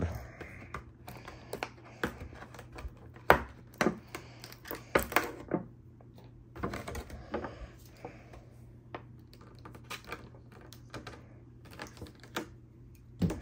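Stiff clear plastic blister tray being handled and worked with a folding utility knife: irregular sharp clicks, taps and crackles of the plastic, strongest a little over three seconds in and again around five seconds in.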